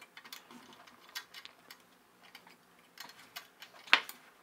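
Small scattered clicks and taps of screws, a nut and a motor mount plate being handled and fitted by hand, with one sharper click about four seconds in.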